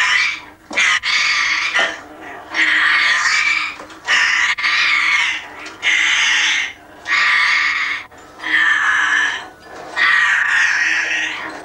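African grey parrot squawking harshly in a run of about nine loud bursts, each lasting around a second, with short gaps between them.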